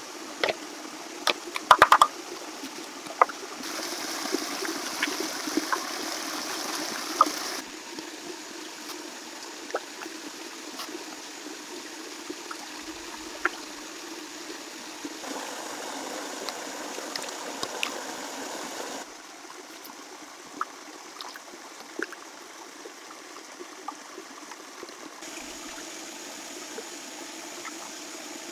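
Steady trickling, running water, like a small stream. Its level steps up and down several times, as at cuts. Scattered sharp clicks and knocks sound over it, thickest in the first two seconds.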